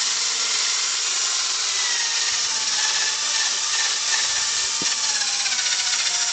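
Electric drill running steadily, spinning a polishing pad that buffs a plastic headlight lens with polishing compound, the polishing stage of headlight restoration. Its whine drops slightly in pitch near the end.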